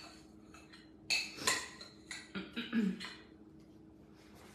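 A metal spoon scraping and clinking against a glass bowl as a sticky apple mixture is scraped out, with a handful of sharp clinks between about one and three seconds in.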